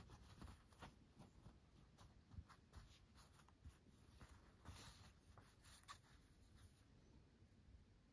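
Faint, irregular rustling and soft ticks of hand embroidery: calico being handled and thread drawn through it with a needle.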